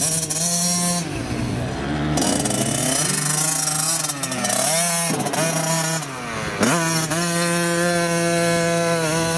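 Small youth motocross bike's engine running under changing throttle, its pitch rising and falling as it rides. About six and a half seconds in the pitch drops sharply and climbs straight back up, then holds steady.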